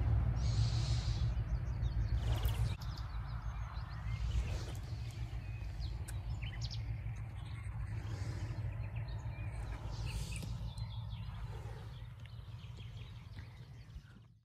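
Outdoor ambience in grass and bushes: a steady low rumble with faint bird chirps above it. It fades out near the end.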